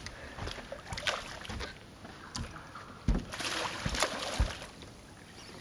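Hooked barramundi thrashing at the side of an aluminium boat as it is grabbed by hand: a burst of splashing water with a few hard thumps about three seconds in.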